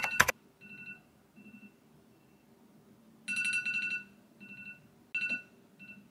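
Smartphone alarm going off: short repeated electronic beeps, faint at first and louder from about three seconds in.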